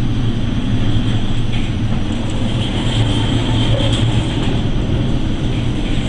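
A ship ploughing through heavy storm seas: a loud, steady mix of wind and sea noise over a constant low engine hum.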